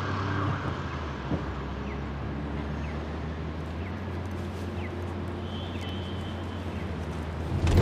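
Steady low engine hum and road noise heard inside the cabin of a moving taxi.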